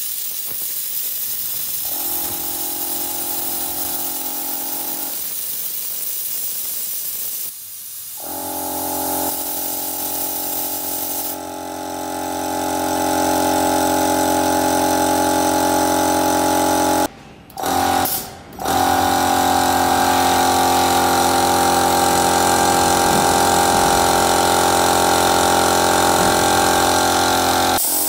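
24-litre air compressor with a 2 HP copper-wound motor running on test, its pump giving a steady mechanical clatter with a constant hum. It gets louder about halfway through, and the sound cuts out briefly twice a little past the middle before running on.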